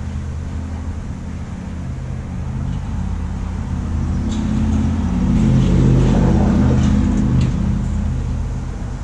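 A motor vehicle's engine hum growing louder, loudest about six seconds in, then fading, as a vehicle passes by. A few light clicks sound near the middle.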